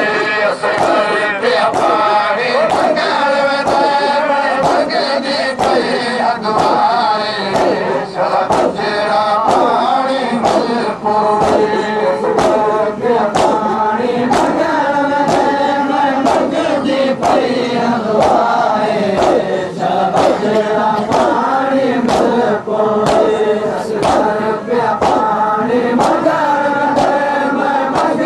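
A group of men chanting a noha, a Shia mourning lament, in unison. A steady beat of sharp slaps from chest-beating (matam) falls roughly every three-quarters of a second.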